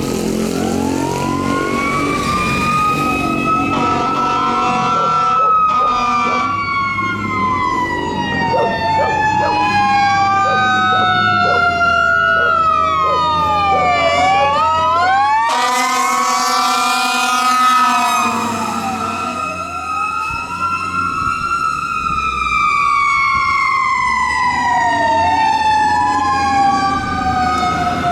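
Fire truck responding with a Federal Signal PA300 electronic siren, several siren tones rising and falling over one another. A long siren tone falls slowly and then starts again higher a little after halfway. A loud, rough blare sets in about halfway through.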